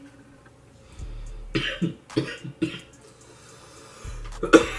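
A man coughing in a series of short coughs, the loudest near the end, after a harsh vape hit that catches his throat.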